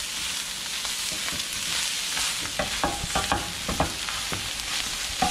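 Cooked rice and chopped herbs sizzling steadily in a frying pan while a plastic spatula stirs and scrapes them, with irregular clicks and scrapes against the pan.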